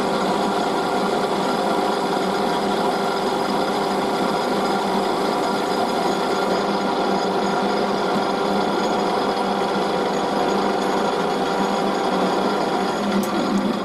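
Metal lathe running steadily while taking a cut, a constant mechanical running sound with several steady tones under a spread of cutting noise.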